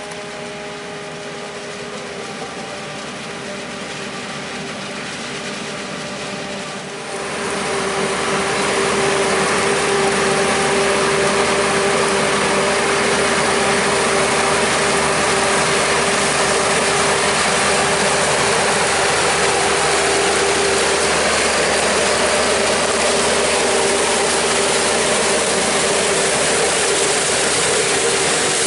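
Claas Jaguar 970 self-propelled forage harvester chopping standing corn for silage and blowing it into a wagon alongside, with the towing tractor's engine in the mix: a steady loud machine drone with a held whine. About seven seconds in it jumps much louder into a dense rushing hiss.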